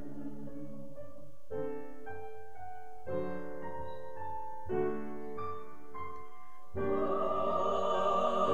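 Church choir anthem: a keyboard accompaniment plays a slow series of held chords, changing about every one and a half seconds, then the choir comes in, fuller and louder, a little under seven seconds in.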